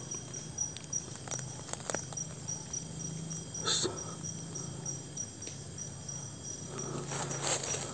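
A cricket chirping at an even pace, several short high chirps a second without a break. Under it runs a steady low hum, with a few brief rustles and clicks, the strongest about four seconds in and again near the end.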